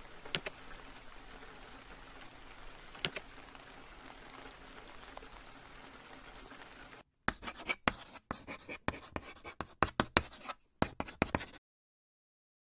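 Steady rain falling, with a few sharp drips, for about seven seconds. Then it cuts off, and a rapid run of loud, scratchy clicks and crackles follows for about four seconds before stopping abruptly.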